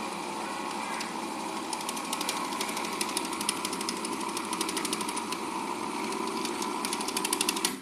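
Vegetable stuffing cutting machine running, its blade spinning at high speed in the steel bowl as it chops vegetables into fine granules. A fast ticking sets in about two seconds in and grows busier, and the machine cuts off suddenly at the end.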